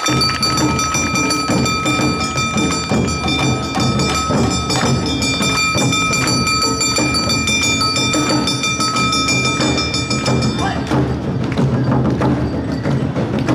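Awa odori festival band playing, with drums beating continually underneath. A single high note is held steady for about eleven seconds over the drumming, then stops, leaving the drums and percussion going on.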